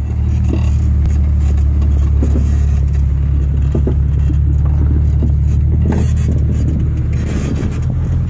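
Lifted Jeep Cherokee's engine running steadily at low revs as it crawls off-road over a dirt ledge, with scattered short creaks and knocks from the truck's suspension and body.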